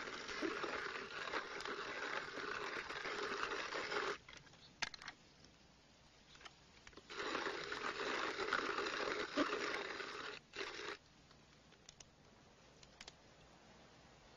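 Hand-cranked coffee grinder grinding beans: a gritty, crunching rasp. It stops about four seconds in, starts again about three seconds later, and runs for about four seconds more.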